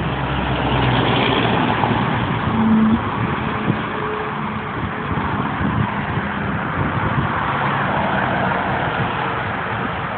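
Freeway traffic passing at speed: a steady rush of tyre and engine noise from cars, with a semi truck's engine running low in the first two seconds.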